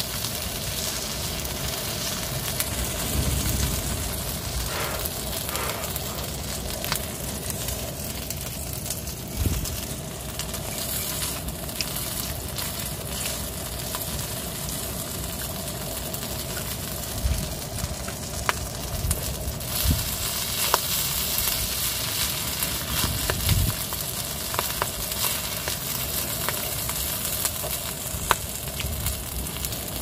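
Meat and vegetables sizzling steadily on a small camping griddle, with scattered clicks and scrapes of a metal utensil stirring the food on the griddle.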